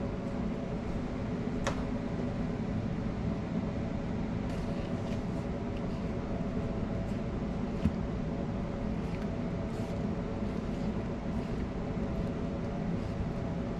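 A steady mechanical hum with faint, scattered scrapes and taps as a spatula stirs dry flour and yeast in a plastic mixing bowl.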